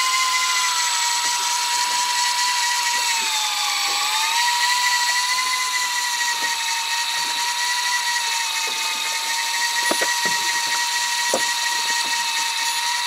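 Electric fishing reel's motor winding in line with a hooked cod on, a steady high whine that sags in pitch for a moment a few seconds in as the motor takes more load, then picks back up.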